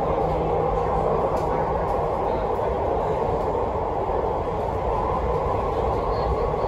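MTR Tuen Ma line C-train running, heard from inside the passenger car: a steady, even rumble and rail noise with no breaks or stops.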